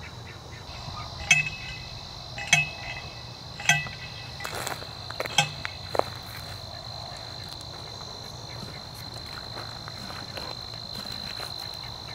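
Insects trilling steadily at one high pitch in the grass. Three short, sharp ringing clicks about a second apart stand out in the first four seconds, followed by a few softer knocks around five to six seconds in.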